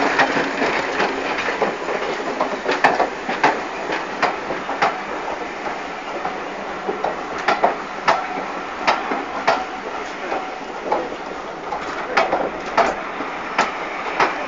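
Railway passenger coaches rolling past a platform, their wheels clacking sharply over rail joints every second or so above the steady rumble and rattle of the moving train.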